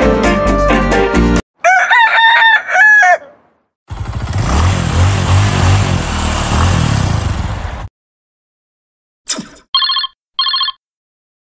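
Music cuts off and a rooster crows once, in a call that rises and falls. About four seconds of dense, rough noise follow, then a short falling sweep and two short electronic beeps.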